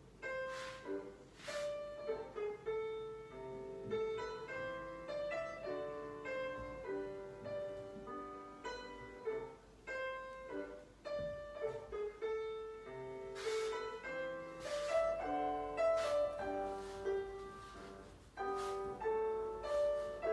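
Solo piano playing classical-style ballet class accompaniment for a barre exercise, notes struck in an even rhythm throughout.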